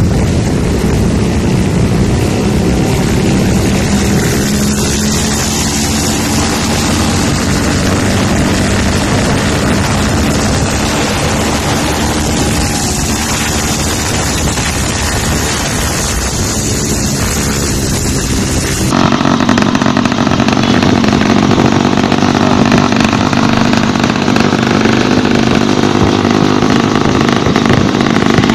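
Small motorbike-type engine of a motorized kick scooter running as it is ridden, with wind rushing on the microphone. About two-thirds of the way through there is an abrupt switch to a steadier, louder engine running close by.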